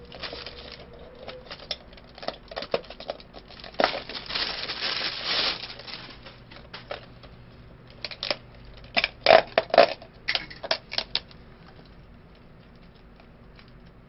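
Close-miked eating sounds from a hamburger meal: chewing, food and wrapper rustles, and a paper drink cup being handled, heard as irregular clicks and rustles with a cluster of louder ones about two-thirds of the way through.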